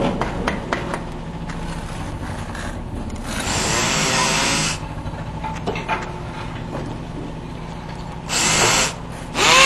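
DeWalt power drill run in short bursts: one of about a second some three and a half seconds in, a shorter one near the end, then starting up again louder just at the end. Before the first burst, clicks and knocks as the drill is handled.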